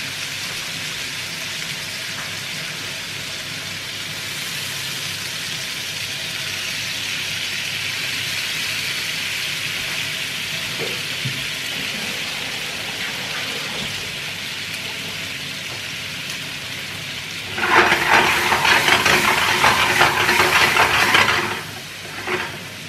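Haddock fillets sizzling in butter in a frying pan, a steady hiss. Near the end comes a louder burst of sizzling with clicks and clatter that lasts about four seconds.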